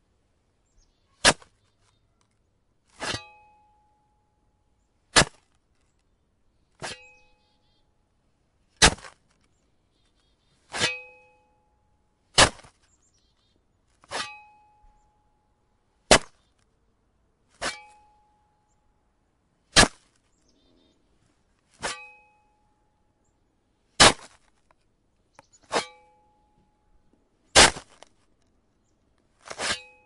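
A metal shovel blade striking into icy snow, one sharp hit about every two seconds, sixteen in all. Several hits leave a brief metallic ring.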